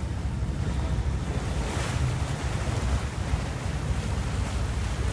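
Wind buffeting the microphone and the rush of open-sea waves aboard a sportfishing boat, a steady low rumble with a brief louder rush about two seconds in.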